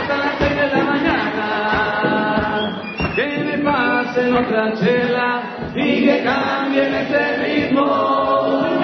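Music with several voices singing together over a steady beat.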